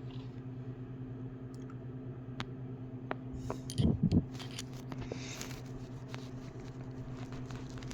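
Scattered light metal clicks and clinks as a flex-head ratchet and its sockets are handled and fitted, with a duller knock about four seconds in, over a steady low hum.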